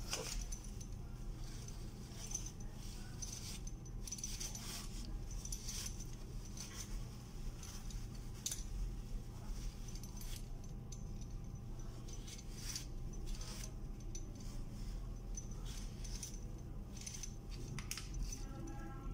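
A tissue rubbing and scraping over an aluminium lamp block to wipe off excess paste. Light clicks and clinks come as the metal part is handled and turned, over a steady low hum.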